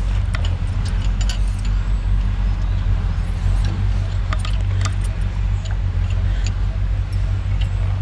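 A skid-steer loader's diesel engine running at a steady idle after its clogged banjo-bolt fuel screen has been cleaned. Scattered sharp clicks and taps from hands and tools working in the engine bay sound over it.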